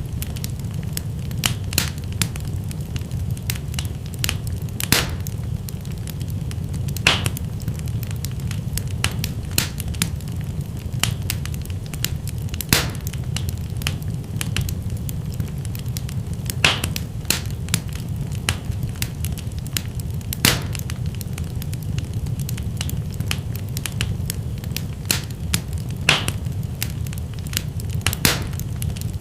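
Wood fire burning in a fireplace: a steady low rumble of flames with constant crackling and sharper pops every few seconds.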